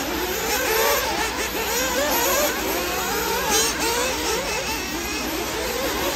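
Several radio-controlled off-road racing buggies running a race on a dirt track, their motors revving up and down in many overlapping rising and falling pitches.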